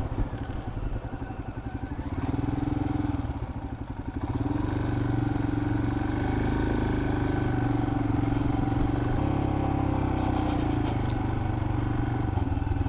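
Royal Enfield Himalayan single-cylinder motorcycle engine running steadily at low speed, growing louder and holding steady from about four seconds in.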